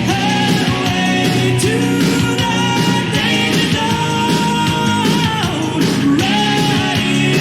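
Rock music with singing and guitar over a steady beat.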